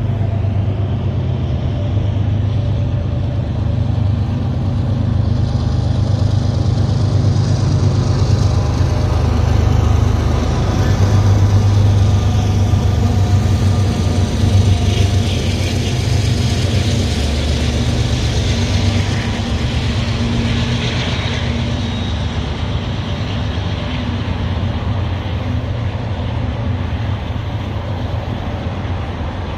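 Union Pacific diesel locomotives rumbling as they approach and pass close by, loudest about ten to thirteen seconds in. After them comes the steady rolling noise of double-stack intermodal container cars on the rails.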